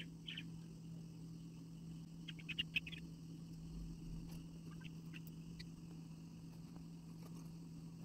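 Budgerigars giving short, high chirps here and there, with a quick run of five or six about two to three seconds in, over a steady low hum.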